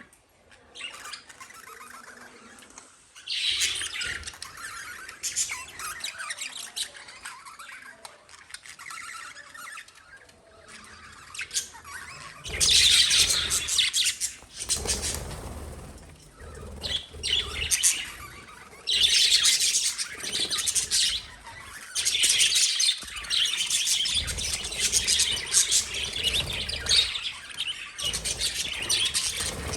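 Pet lovebirds chattering and chirping in bouts of rapid, high-pitched calls, with quieter gaps between the bouts. The loudest bursts come about 13 seconds in and again around 19 to 20 seconds.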